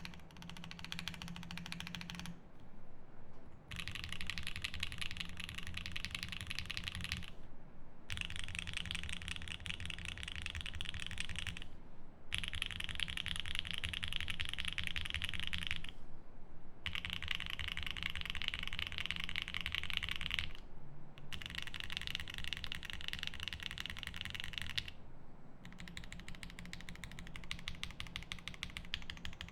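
Fast continuous typing on a 7V mechanical keyboard with lubed Durock L7 62g linear switches, a polycarbonate plate and GMK keycaps: a dense run of keystroke clacks with short let-ups every few seconds.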